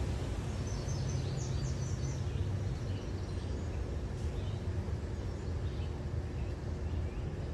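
Steady low rumble of a car rolling slowly along a paved road, with birds chirping high above it: a quick run of chirps about a second in and a few fainter ones around four seconds.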